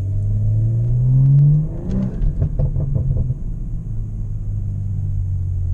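BMW M340i's turbocharged straight-six accelerating, its note rising for about a second and a half, then a stretch of irregular popping as the revs drop, after which it settles into a steady drone.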